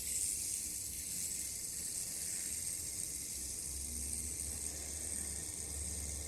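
Steady hiss with a low hum underneath: room tone, with no distinct sound standing out.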